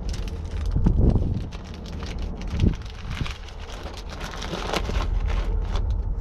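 Crinkling and rustling of a clear plastic bag being handled, many small crackles, over a steady low rumble.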